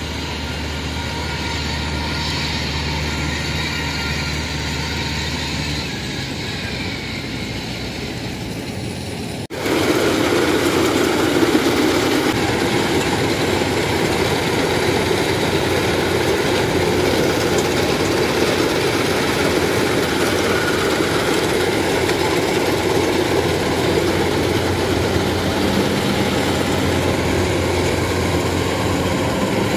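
A tracked rice carrier's engine running steadily at a distance. About a third of the way in it cuts to a 105-model rice combine harvester running loudly and steadily up close, its engine and threshing machinery working.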